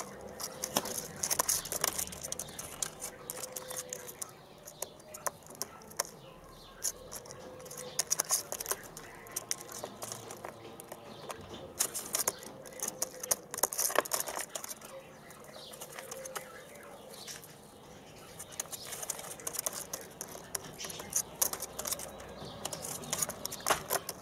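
Young white doves moving about a wire cage: irregular sharp clicks, ticks and scratches of feet, beaks and feathers against the wire and the litter-strewn floor, with a faint wavering tone underneath.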